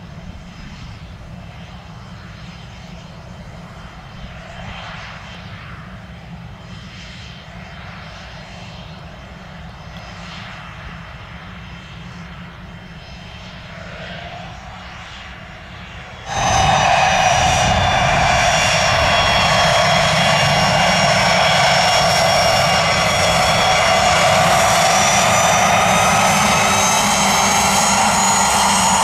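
Twin turbofan engines of a Pilatus PC-24 business jet. They start as a faint whine over a low rumble; then, a little past halfway, they turn abruptly much louder, a strong whine with several steady high tones that holds to the end.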